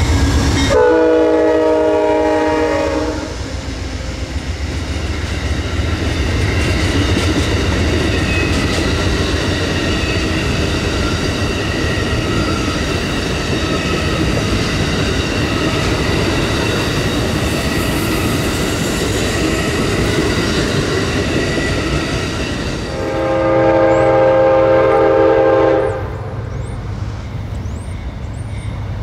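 Amtrak diesel passenger train: a locomotive horn blast of about two seconds, then the steady rumble and rail clatter of a train running past, then a second horn blast of about three seconds near the end.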